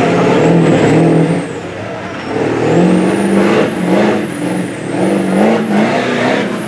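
Ford Super Duty diesel pickup running hard at high revs while pulling a weight-transfer sled, its engine pitch stepping up and down as it loads and recovers. A thin high whistle wavers above the engine.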